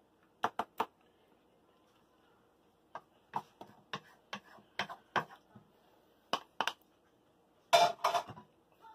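Wooden spoon knocking and scraping against a disposable aluminium foil pan while spreading lasagne sauce: a scatter of sharp clicks, with a louder clatter of several knocks near the end.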